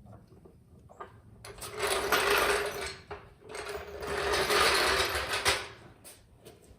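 Handheld power tool run in two bursts, about a second and a half and then two seconds long, with a steady buzzing tone under a dense rattle, tightening the bolts of a newly fitted exhaust system.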